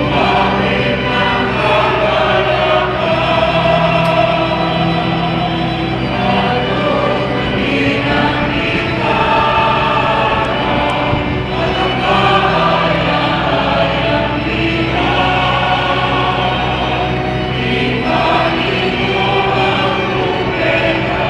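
Choir singing a processional hymn in long held phrases with short breaks between them, over a steady low accompaniment.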